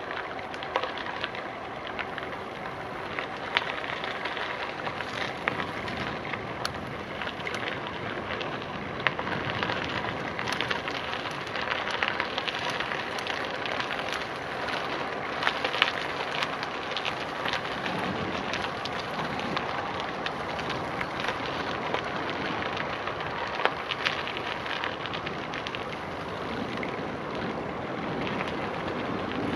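Bicycle tyres rolling over a gravel path: a steady crunching crackle with many small, sharp clicks of grit and stones.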